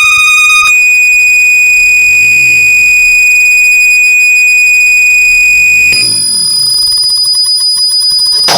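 Loud, steady electronic test tone played through a DJ's PA speakers during a sound check. It holds one high pitch and jumps up about an octave twice, just under a second in and again near the end.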